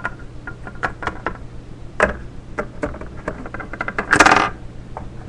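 Irregular light clicks and knocks, several a second, from small plastic toy figures being moved and tapped on a hard surface. About four seconds in there is a louder, half-second rustling scrape.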